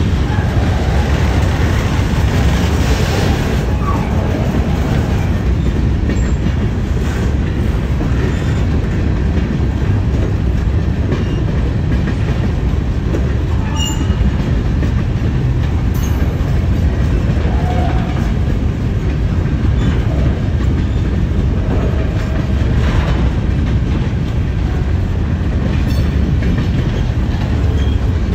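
Covered hopper cars of a freight train rolling past at close range: a steady, loud rumble and clatter of steel wheels on the rails.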